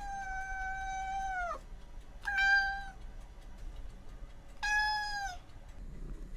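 Domestic cat meowing three times: a long drawn-out meow, then two shorter ones, each falling in pitch at the end.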